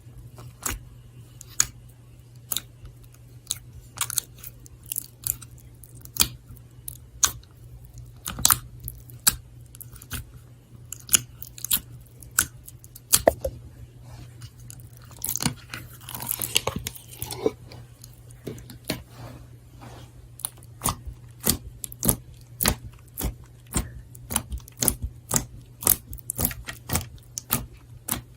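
Clear ice slime being pressed and handled, its thin hardened crust crackling in many sharp, irregular crunchy clicks, with a denser run of crackling about halfway through.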